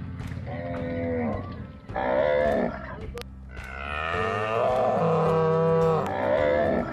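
Cows mooing: two short moos, then a long drawn-out moo starting about three and a half seconds in.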